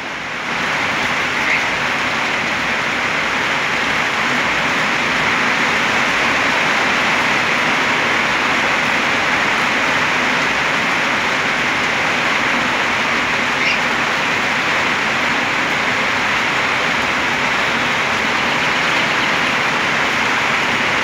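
Steady rain falling, an even hiss with drops splashing through the wire mesh of a wooden aviary.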